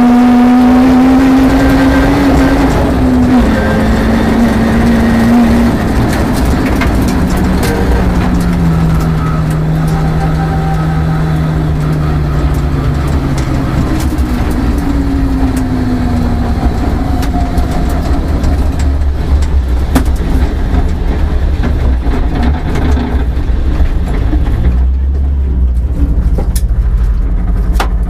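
Peugeot 306 rally car's engine heard from inside the cabin at speed on gravel, its pitch rising and falling with the throttle over a steady low road rumble. Near the end the engine note drops away, leaving mostly low rumble with occasional clicks.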